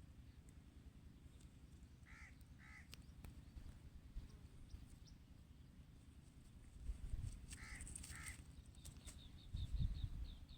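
Parrot calling: two short calls, then two more about five seconds later, followed near the end by a quick run of high chirps. A low steady rumble runs underneath.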